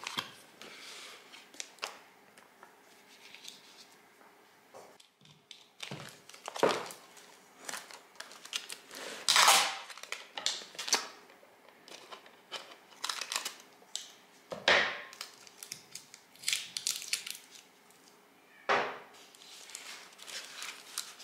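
Irregular crinkling and rustling of a paper seed packet and thin plastic seedling trays being handled, with clear sticky tape pulled from its roll. A few louder crackles and tears stand out, one about a third of the way in.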